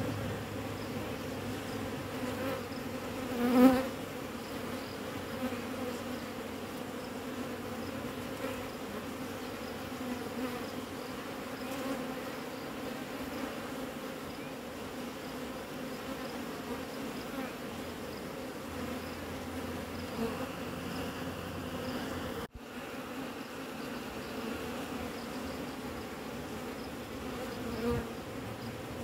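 Honeybees buzzing around a hive entrance in a steady, many-winged hum. One bee buzzes loudly close past about three and a half seconds in, and another comes close near the end.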